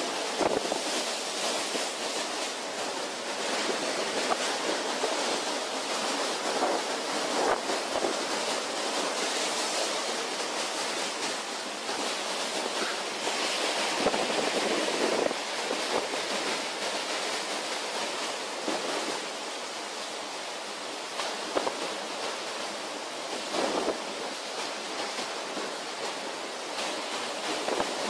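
Storm wind and rough seas breaking against a large ship's bow: a steady rushing noise that swells into louder surges every several seconds.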